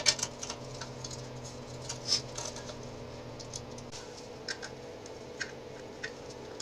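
Scattered light clicks and taps of tools and parts being handled during motorcycle reassembly, over a steady low hum, with a louder clink about two seconds in.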